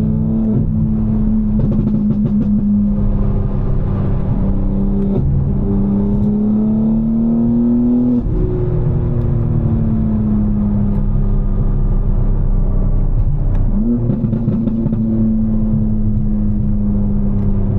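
Tuned BMW M4's twin-turbo inline-six engine running under way in traffic. Its pitch slowly rises and falls with speed, climbs for a few seconds then drops suddenly about halfway through, and jumps briefly near the end.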